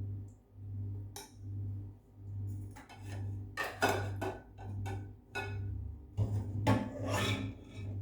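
A spoon scraping and knocking against a pot or dish in a burst of quick strokes from about three seconds in, over soft background music with a slow, pulsing bass beat.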